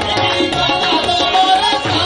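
Live qawwali music: hand drums beating a quick, steady rhythm over sustained, harmonium-like notes, with a held melodic line near the middle.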